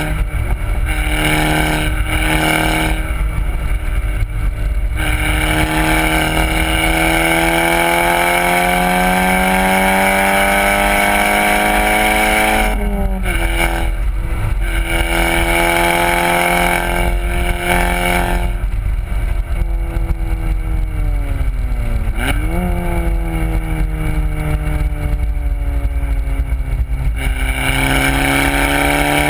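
VW Golf R's turbocharged four-cylinder engine through a Borla aftermarket exhaust, driven hard on a racetrack: the note climbs under acceleration, drops sharply at a gear change about 13 seconds in, winds down under braking, and jumps back up with a downshift about 22 seconds in before climbing again. Steady road and wind noise lies underneath.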